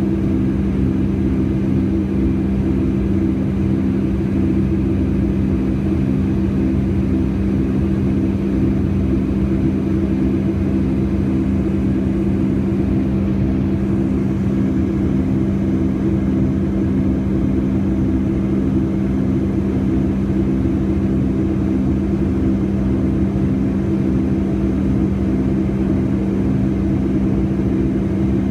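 Boeing 757-200's jet engines heard from inside the passenger cabin: a loud, steady drone with a constant hum and a low rumble beneath it.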